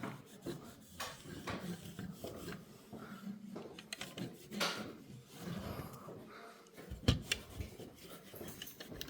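Light handling noises: scattered clicks, rubbing and small knocks of hard objects being moved about, with a sharper knock about seven seconds in.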